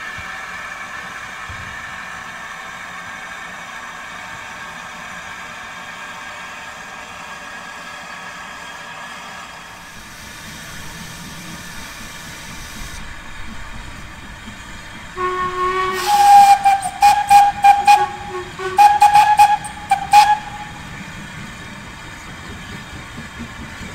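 Steam locomotive standing in steam: a steady hiss, with a brighter burst of steam about ten seconds in. About fifteen seconds in, a steam whistle sounds loudly in two blasts, about five seconds in all.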